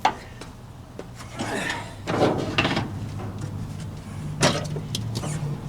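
Knocks and clanks of hand tools and metal parts being handled, with scraping in between, and a low steady hum that comes in about two seconds in and grows louder near the end.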